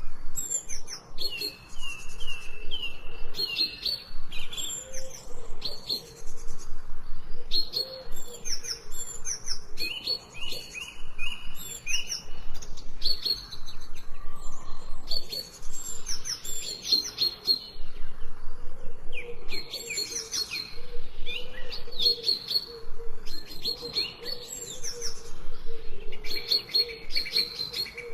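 Several songbirds chirping and singing together, with overlapping calls and repeated runs of short, evenly spaced whistled notes.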